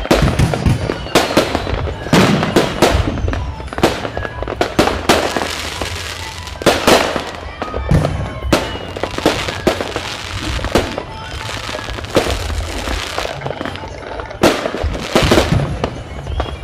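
Aerial firework shells bursting overhead in a fast, continuous run of bangs, with crackle and rumble in between.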